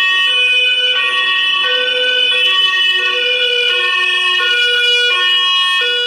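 Ambulance two-tone hi-lo siren, switching steadily back and forth between a higher and a lower note, each held for well under a second.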